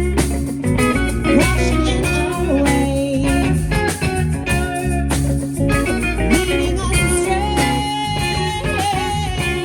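Live band playing an instrumental passage with no vocals: electric guitar lines with pitch bends over bass and drums, in a bluesy style.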